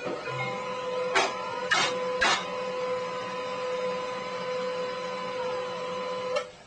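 Printer running: a steady motor whine with three sharp clunks in the first two and a half seconds, then it stops abruptly near the end.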